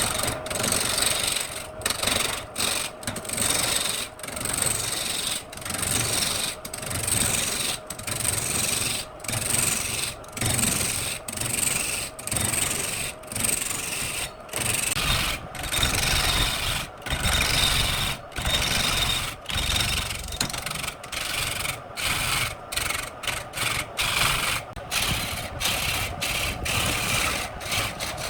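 Spinning workpiece on a wood lathe being worked with a tool or abrasive: a steady rasping rub, broken by brief gaps roughly once a second as the contact stops and starts.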